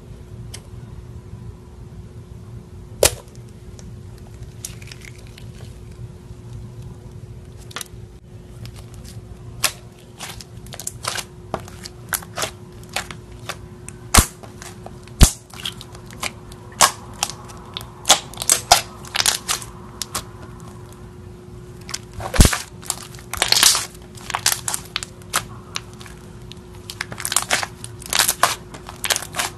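Thick slime squeezed and pressed by fingers, making many sharp pops and crackling clicks as trapped air bursts, in thickening bunches from about a quarter of the way in. There is a single sharp snip about three seconds in as scissors cut into the slime-filled stress ball.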